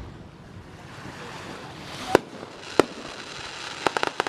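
Fireworks bursting: two separate bangs about two seconds in, then a quick run of sharp cracks near the end.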